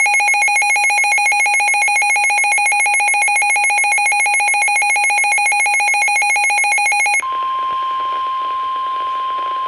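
Weather radio receiver sounding its alert: a loud electronic warble that flips rapidly between two pitches, for about seven seconds. It then switches to the steady single-pitch NOAA Weather Radio 1050 Hz attention tone that precedes a warning broadcast.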